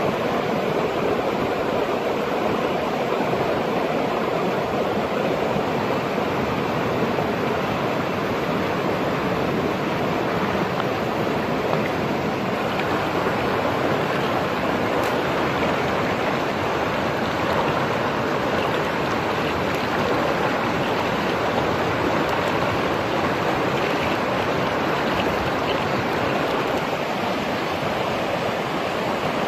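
Fast river running over rapids: a steady, even rush of white water.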